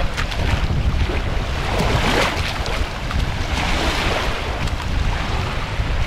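Small sea waves washing up on the shore, swelling twice, with wind buffeting the microphone in a heavy low rumble.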